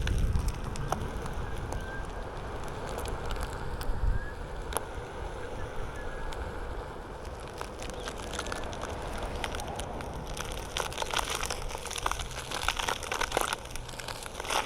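Onewheel tyre rolling over a dirt and gravel trail with a steady crunch and crackle of grit. Wind buffets the microphone in gusts, strongest near the start and about four seconds in.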